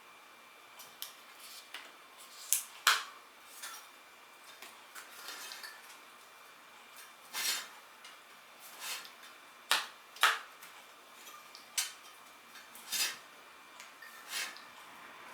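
Metal hand tools clinking and knocking against each other and the wheel, a dozen or so sharp, irregular clicks during hands-on motorcycle tyre work.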